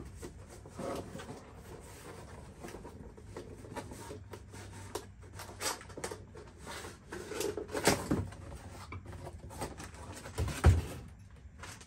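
Cardboard boxes and packaging being lifted, slid and set down: irregular scrapes, rustles and knocks, with the loudest knock near the end.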